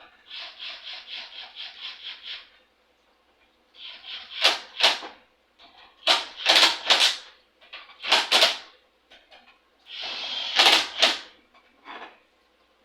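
A socket ratchet clicking in a quick run of about a dozen clicks, then several louder rasping, scraping handling noises.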